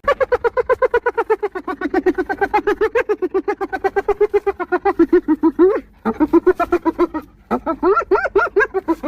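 Spotted hyena giggling: fast runs of high, pitched yelps at about seven a second, rising and falling in pitch. There are three bouts, with brief breaks about six and seven and a half seconds in.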